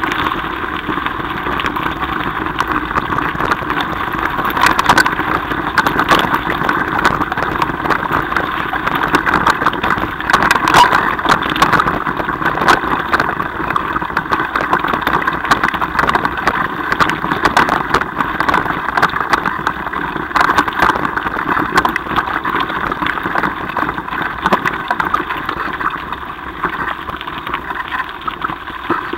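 On-board ride noise of a mountain bike on a gravel track: the tyres crunch over loose gravel under a steady rumble, with frequent small clicks and knocks as the bike rattles over the stones.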